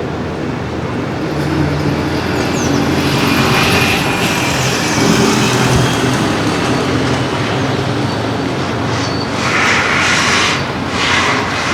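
Busy city street traffic: a large vehicle's engine running close by with a steady low hum, and swells of hiss around the middle and again near the end.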